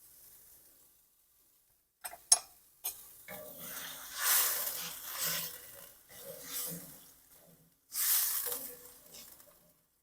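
A utensil clinks twice against the pan. Then stirring and bubbling in a pan of simmering chicken broth with carrots and green peas comes in noisy swells.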